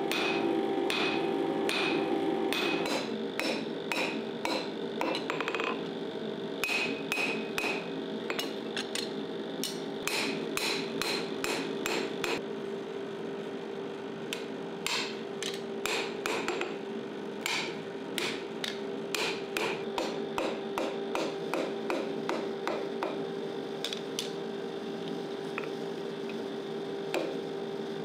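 Repeated sharp knocks or taps, irregular in spacing and coming several times a second, over a steady low hum.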